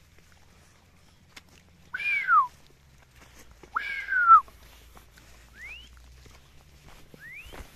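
High whistle-like calls: two arching calls that fall away at the end, about two and four seconds in, then two short upward-sliding whistles near the end.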